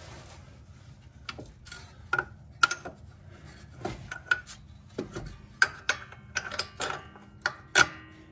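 About a dozen irregular metallic clinks and knocks, some with a short ring, as steel bolts are worked into the bolt holes where the steering knuckle meets the front strut's lower bracket.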